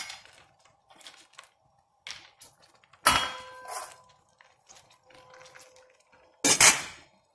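Stainless-steel pot and lid clanking as the pot is covered: small clinks and scrapes, a loud metal clank about three seconds in that rings briefly, and another loud clank near the end as the lid is set on the pot.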